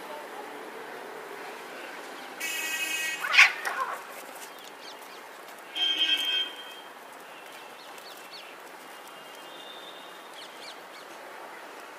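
Two domestic cats fighting: a drawn-out yowl about two and a half seconds in that breaks into a sharp, loud cry, a second yowl around six seconds, and a fainter one near ten seconds.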